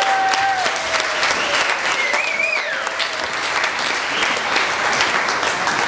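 A roomful of people applauding, with a few voices calling out over the clapping.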